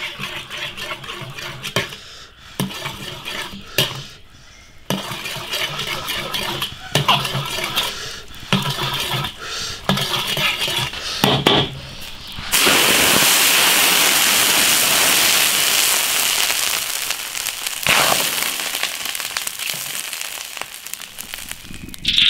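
Sugar caramelising in oil in a hot iron wok, stirred with a steel ladle that scrapes and clinks against the metal, with light crackling. About twelve seconds in, a loud steady hiss of steam starts abruptly as something goes into the hot caramel, then slowly dies down.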